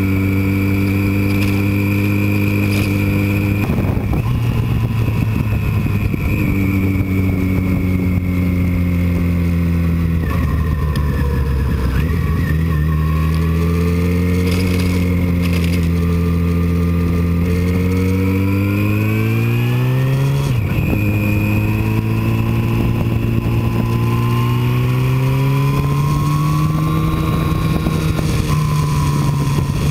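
Motorcycle engine running at road speed, its pitch climbing as it accelerates and dropping suddenly at gear changes, about four seconds in, around ten seconds in and again around two-thirds of the way through.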